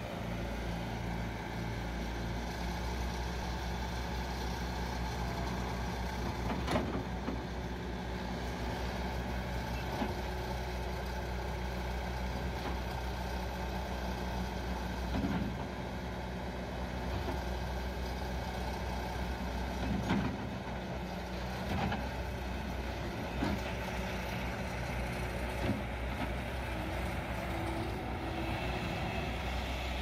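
Diesel engine of a Bobcat S530 skid steer loader (48 hp) running steadily as the machine works its loader arms and drives, with a few short clunks scattered through.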